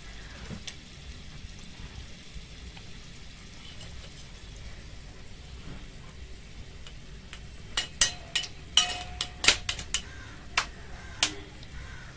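Hot oil sizzling steadily around a noodle puff deep-frying in a miniature steel kadai over a small wood fire. In the last few seconds a run of about ten sharp clicks and taps cuts through, some with a brief ring.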